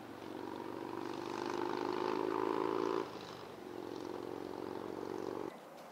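Motorboat engine droning steadily, a noise loud enough to stop the talk. It swells until about three seconds in, drops back, then carries on and cuts off abruptly near the end.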